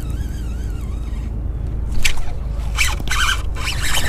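A hooked bass thrashing and splashing at the water's surface, with a run of sharp, irregular splashes starting about halfway through, over a steady low rumble.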